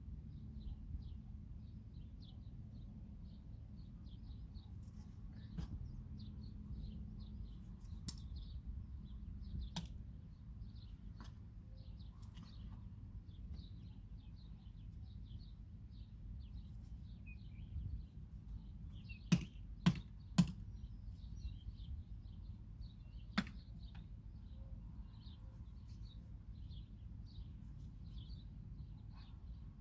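Quiet outdoor ambience: a low steady rumble under rapid, high little bird chirps, broken by a few sharp knocks, three in quick succession about two-thirds of the way in and another a few seconds later.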